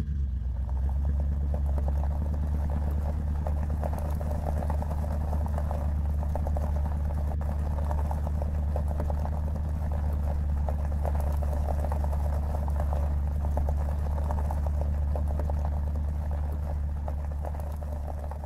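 A vehicle engine idling steadily, a deep even rumble that begins to fade out near the end.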